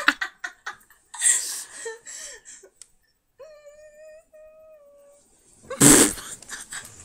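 Stifled giggling and breathy laughter from girls trying to stay quiet, with a sudden loud burst of laughter about six seconds in.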